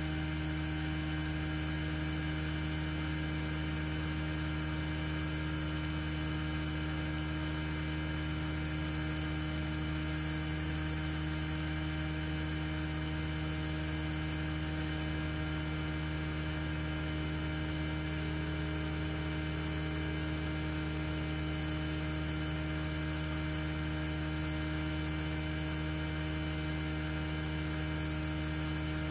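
A steady, unchanging electrical hum.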